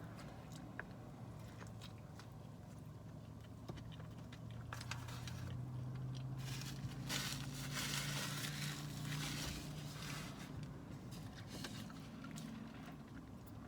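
Chewing and crunching of fried fast food close to the microphone, with small scattered clicks. A low hum and a rush of noise swell up in the middle and fade again.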